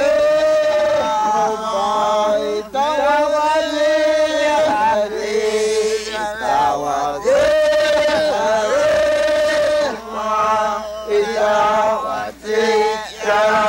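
Men chanting in phrases of long held notes, the pitch sliding between notes, with short breaks between phrases every few seconds.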